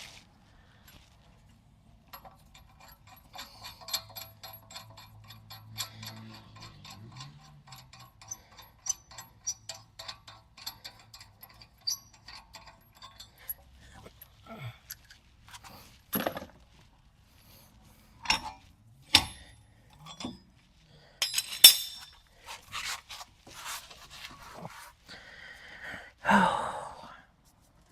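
Rapid, evenly spaced metallic clicking of a hand tool for about ten seconds as lug nuts are undone, followed by scattered metal clinks and knocks of nuts and tools being handled.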